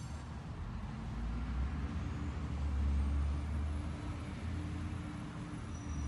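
Low rumble of road traffic with a faint steady hum, swelling to its loudest around three seconds in and easing off after.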